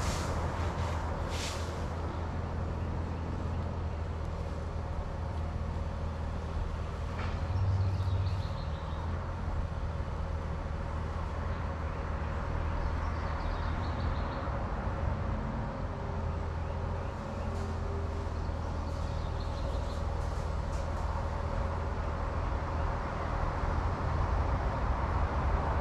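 Heavy diesel engine running steadily at low revs, with a couple of sharp clicks about a second in.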